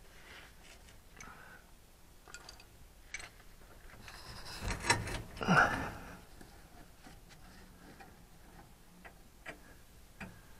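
Hand ratchet wrench clicking in short runs as bolts on the stabilization jack's mount are tightened, with louder knocking and handling noise about five seconds in.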